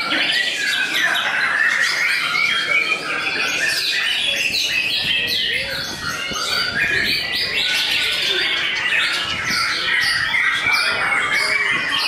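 White-rumped shamas (murai batu) singing in contest, several birds at once: a dense, unbroken tangle of quick rising and falling whistled notes and chirps overlapping without a pause.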